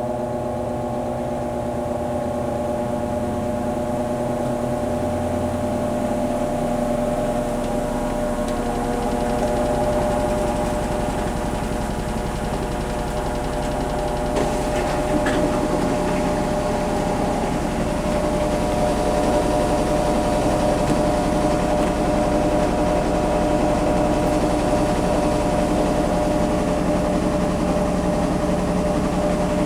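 Kenmore Series 500 High Efficiency washing machine in its spin cycle: a steady hum and whine of motor and spinning drum, made of several held tones, gradually growing a little louder.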